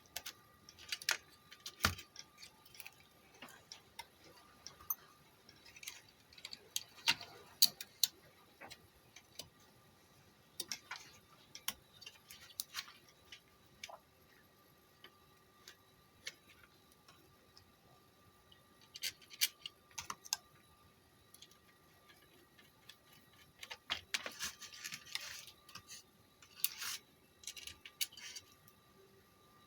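Scattered light clicks, taps and short scrapes of hand work on a car stereo's circuit board and heatsink, with small tools and metal parts being handled, coming in irregular bunches with quiet gaps between.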